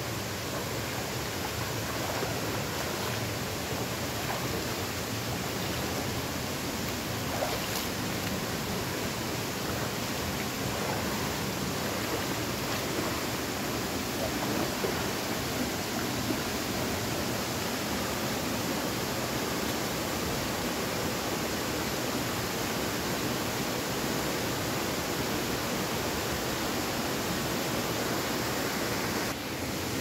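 A shallow rocky stream rushing steadily over and around boulders, a constant noise of flowing water.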